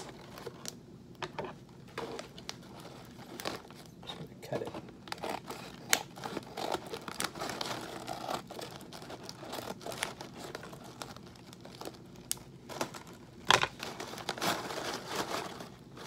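Paper microwave pork-rind bag being crinkled and cut open with scissors: crackly rustling of stiff paper with many sharp crinkles, the loudest about thirteen seconds in.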